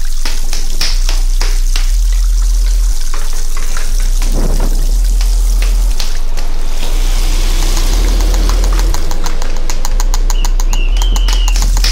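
Sound collage of layered household recordings: a low pulse that changes about once a second runs under scattered taps and clicks. Water-like hiss comes in about seven seconds in, followed by a fast run of clicks and a wavering high tone near the end.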